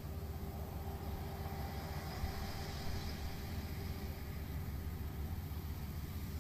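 Kubota ER112 single-cylinder diesel engine running steadily at idle.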